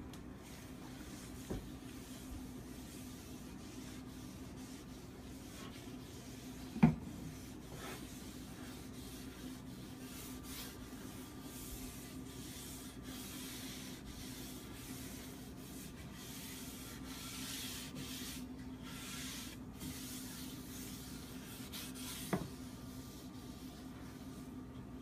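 A hand and cloth rubbing oil into a hardwood cutting board, a soft scratchy rubbing over a steady low hum. Two knocks on wood break in, a loud one about seven seconds in and a lighter one near the end.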